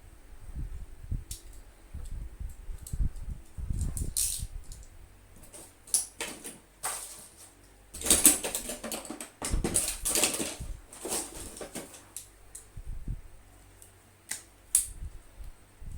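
Hand-tool and handling noise from stripping the insulation off an electrical cable: irregular clicks, knocks and short scraping strokes, busiest in the middle, with a few sharp clicks near the end.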